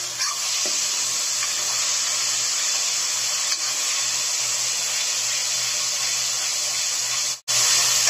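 Onion-tomato masala sizzling steadily in a metal kadai as it is fried and stirred with a steel spoon. The sizzle briefly drops out near the end.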